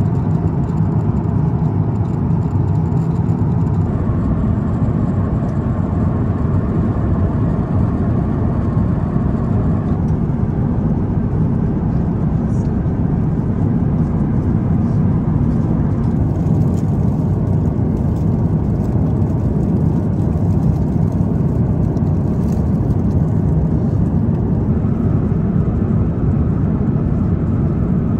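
Airbus A350-900 cabin noise in flight: a loud, steady rush of airflow and engine noise, strongest in the low range.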